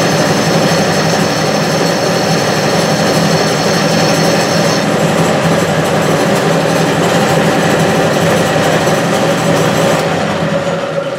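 Clausing 6930 metal lathe running on its variable-frequency drive, turning a heat-treated steel pin, with a little vibration noise that the owner judges not too bad. A high steady whine sits over the running sound for the first half and stops about five seconds in.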